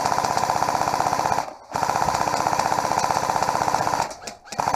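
Airsoft gun firing full-auto in long bursts, a fast, even rattle of shots. It breaks off briefly about a second and a half in and again near the end, where it picks up once more.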